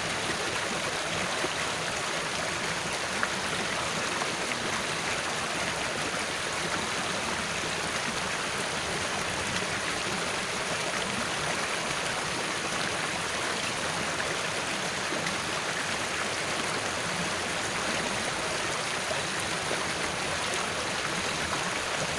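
Water in a small ditch flowing steadily over a shallow bed: a constant rush with no breaks.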